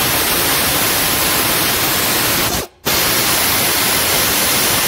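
Pneumatic air ratchet running on a long socket extension, a loud steady hiss of air that stops briefly about halfway through and starts again at once.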